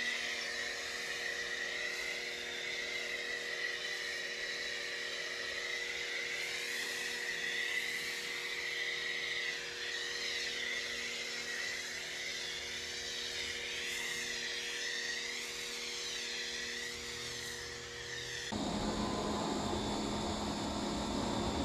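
A power tool for washing and drying a truck, with an electric motor running at a steady whine that wavers slightly in pitch. About 18 seconds in it changes abruptly to a rougher, deeper running sound.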